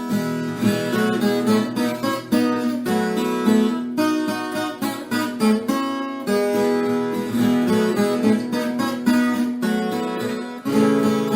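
Moda de viola music: Brazilian country tunes on acoustic plucked strings, notes picked and strummed in a steady flow.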